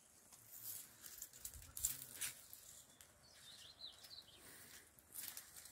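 Faint outdoor background with a few soft taps and scrapes, and a bird chirping briefly about three and a half seconds in.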